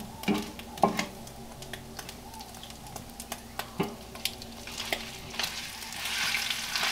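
A wooden spoon knocking and scraping against clay as ground beef is scooped from a clay bowl into a hot clay cazuela. The meat begins sizzling in the oil, which grows louder near the end.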